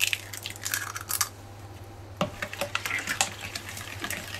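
An egg is broken into a plastic mixing bowl of thick chocolate batter, then a plastic spoon beats it in, knocking and scraping against the bowl in quick irregular clicks from about two seconds in.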